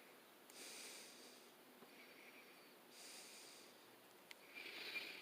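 Faint breathing close to the microphone: three soft, hissy breaths about a second and a half apart, with one small click shortly before the last.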